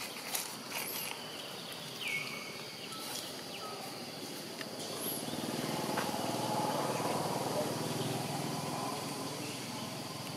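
Outdoor ambience: a steady high insect drone, with a short high call that drops in pitch about two seconds in. A low rumble swells through the middle and eases off near the end.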